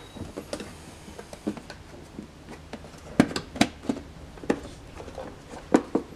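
Irregular sharp plastic clicks and snaps from a BMW E46 xenon headlight as its clear front lens is worked loose from the clips around its edge and pulled off the housing. The loudest snaps come a little past three seconds in.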